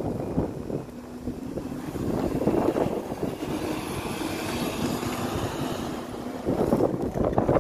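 Alexander Dennis Enviro200 MMC single-deck bus driving close past, its engine running with a steady low tone and a faint high whine as it draws level. Wind buffets the microphone near the start and again near the end.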